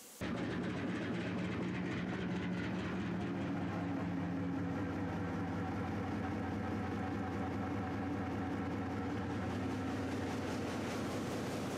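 Fairbanks Morse 32E14 four-cylinder two-stroke diesel engine running steadily at operating speed, around 300 rpm, with an even, rhythmic exhaust beat. The sound comes in suddenly just after the start.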